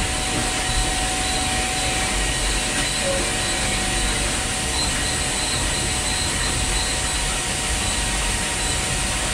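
Steady mechanical din with a faint constant whine from a Makino vertical 5-axis machining center, its trunnion table tilting and spinning the workpiece fast on the C-axis, which turns at up to 120 RPM.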